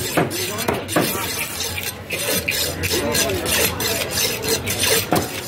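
Heavy fish-cutting knife scraping and chopping through fish pieces on a wooden table, with a few sharp knocks of the blade on the wood.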